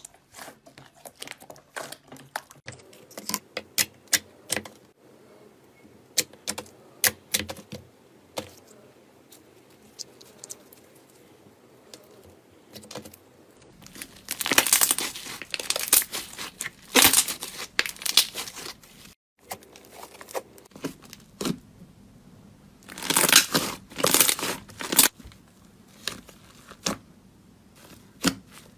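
Crisp crackling and tearing of a crunchy material being pressed and pulled apart by hand: many sharp little crackles at first, then two longer, louder stretches of crackling, about halfway and again about three quarters through.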